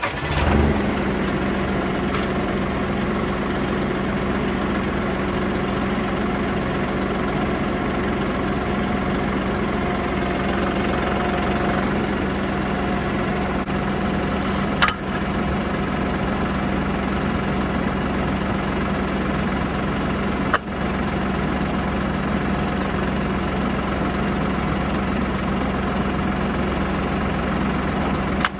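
John Deere 5075E tractor's diesel engine catching just after cranking, then idling steadily. Two brief sharp clicks partway through.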